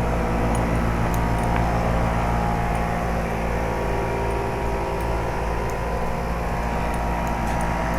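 2007 Carrier 2.5-ton single-stage straight-cool condensing unit running: its compressor and condenser fan make a steady hum.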